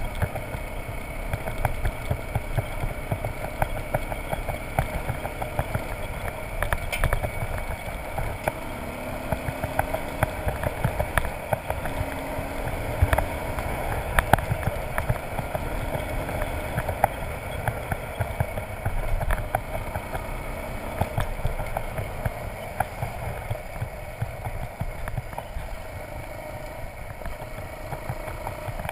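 Motorcycle engine running while riding on a gravel road, under heavy wind rumble on the microphone, with frequent small clicks and knocks.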